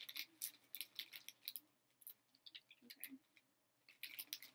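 Faint, irregular crinkling and crackling of a plastic snack packet being handled, in clusters of quick clicks with a quieter stretch in the middle.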